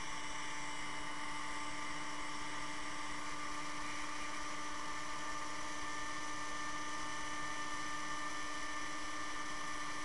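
Electric heat gun running steadily, a constant hum and whine over rushing air, as it blows hot air onto a circuit board to melt the lead-tin solder.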